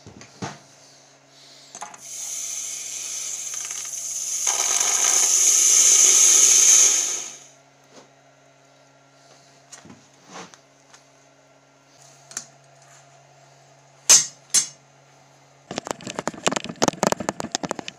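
Red-hot metal quenched in a bucket of water: a loud hiss and sizzle that swells for about five seconds and then dies away. A few sharp clicks follow, and near the end a fast run of clicking and rattling.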